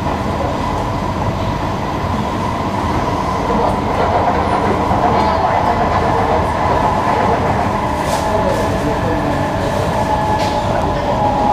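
Cabin noise of a Singapore MRT electric train running at speed: a steady rumble of wheels on rail with a held whining tone. It grows slightly louder about a third of the way in, and a few light clicks come in the second half.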